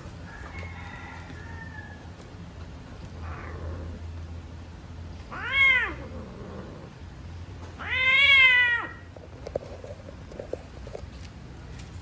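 Cats mating, one cat crying out twice: a short cry about halfway through and a longer one two seconds later, each rising then falling in pitch, with fainter cries before them.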